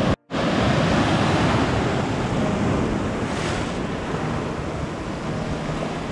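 Small waves breaking and washing over a shallow rocky reef shoreline, a steady surf hiss that eases gradually, with wind buffeting the microphone.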